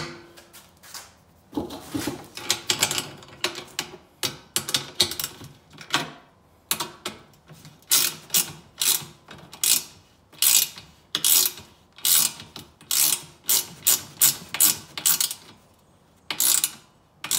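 Ratcheting wrench clicking in quick runs as nuts and bolts are tightened on a steel angle-iron bracket, with a couple of short pauses.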